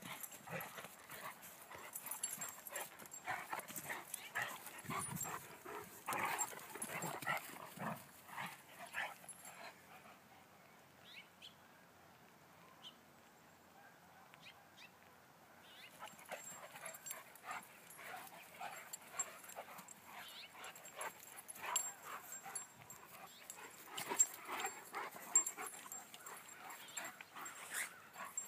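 Two Irish Wolfhounds, a puppy and an adult, play-wrestling, with bursts of dog vocal noises; a quieter spell of several seconds comes around the middle before the play noises pick up again.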